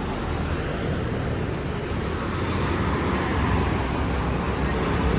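Steady road traffic noise: a continuous low rumble of passing vehicles, with no single vehicle standing out.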